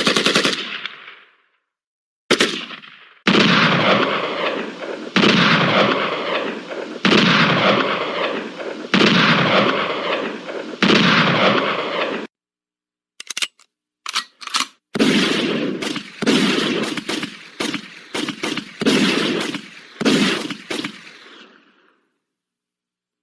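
Gunfire sound effects played one after another: a run of separate bursts, each about two seconds long and fading out, then a few short single shots, then more bursts.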